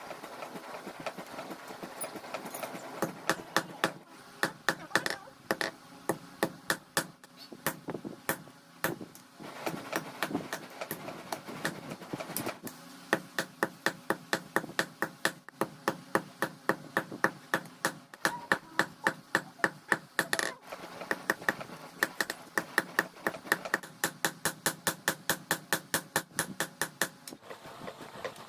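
Blacksmith hammering car-bearing steel into a khukuri blade: sharp hammer blows on metal in quick runs of about four a second, broken by short pauses.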